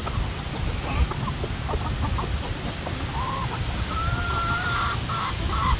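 Flock of backyard hens clucking while they feed, the calls coming thicker from about halfway through, with a few longer drawn-out calls near the end, over a steady low rumble.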